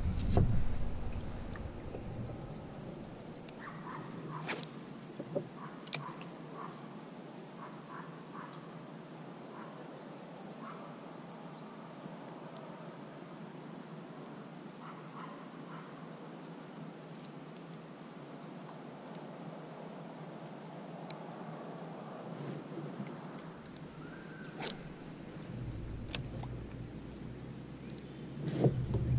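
A high, steady insect trill, pulsing rapidly, which stops about 23 seconds in, with a few faint clicks and knocks.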